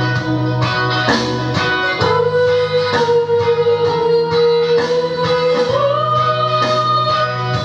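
Music with a guitar accompaniment over a steady bass, and a long held melody note that steps up in pitch near the end.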